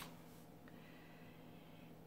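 Near silence: faint room tone with a low steady hum, after a soft brush of paper being laid down at the very start.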